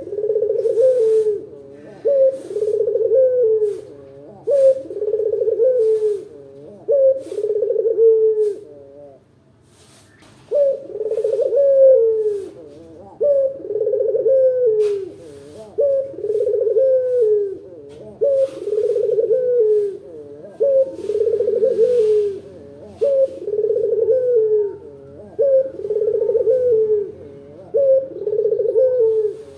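Local puter (Barbary dove) cooing over and over, a deep 'kuk-geru' coo about every one and a half to two seconds, with one longer pause about nine seconds in.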